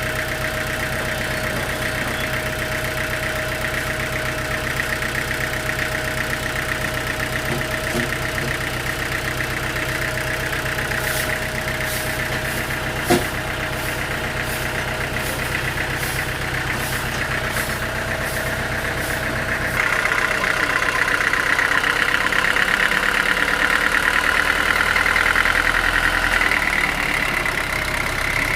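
Sawmill machinery running steadily, with a train of sharp clicks about twice a second in the middle and one louder knock. Near the end the running sound shifts and grows louder and higher.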